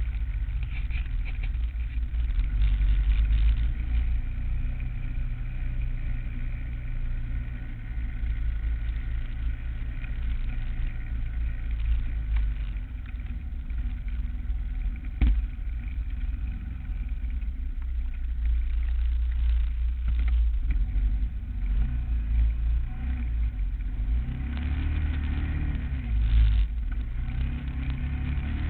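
ATV engine running while riding a dirt trail, its pitch rising and falling with the throttle, most noticeably near the end, over a heavy low rumble. A single sharp knock about halfway through.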